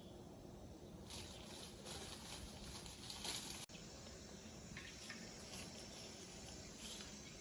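Faint outdoor ambience with a steady high hiss that sets in about a second in, broken by a brief dropout about halfway through.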